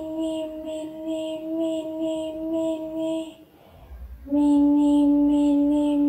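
A high voice chanting "mini" over and over on one steady pitch, about three times a second. It breaks off a little past three seconds in, then starts again about a second later, slightly lower in pitch and louder.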